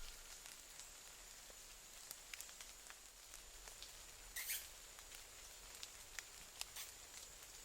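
Near silence: faint outdoor quiet with scattered light ticks and clicks and a faint steady high tone, broken by one brief hissy burst about four and a half seconds in.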